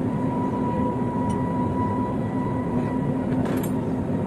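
Steady mechanical drone of heavy machinery, with a constant low hum and a thin steady tone, and a brief click about three and a half seconds in.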